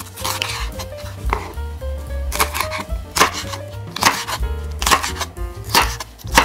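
Kitchen knife chopping red bell pepper on a wooden cutting board: unhurried crisp knocks of the blade through the pepper onto the board, about nine in all, some coming in quick pairs.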